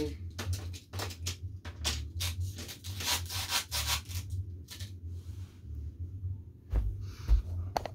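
Irregular rubbing and scraping on a wooden surface, as of objects being slid and handled, over a steady low hum, with a couple of low thumps near the end.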